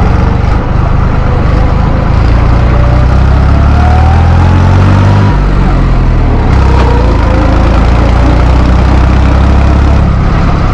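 Valmet 65 tractor's diesel engine running on the road under way. A faint whine rises over several seconds, then the engine note changes about five seconds in and settles again a second later.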